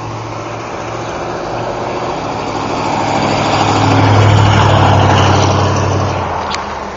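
A motor vehicle driving past, its engine hum and road noise swelling to a peak about four seconds in and fading away by about six seconds.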